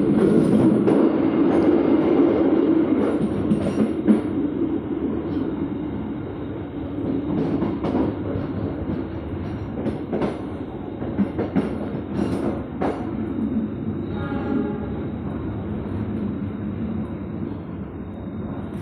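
Passenger train running on steel rails, heard from inside a coach: a steady rumble with wheels knocking over rail joints and points. It grows gradually quieter as the train slows for a station stop, with a brief squeal about three-quarters of the way through.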